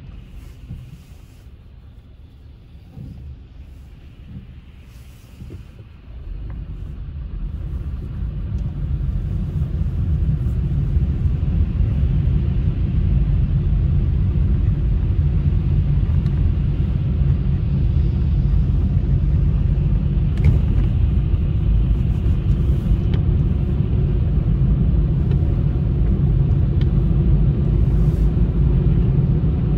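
A car driving: low engine and road rumble, quiet for the first several seconds, then growing louder over a few seconds as it picks up speed and holding steady.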